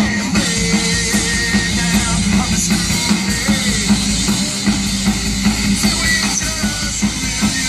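Live stoner rock band playing: an electric guitar riff over a drum kit with steady drum hits and cymbals.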